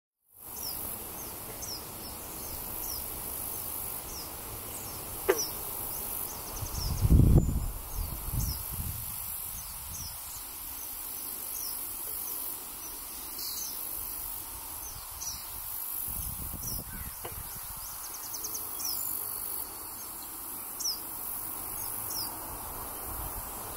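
Eastern kingbirds calling: short, high, sharp notes repeated throughout, over a steady high hiss. A brief low rumble comes about seven seconds in.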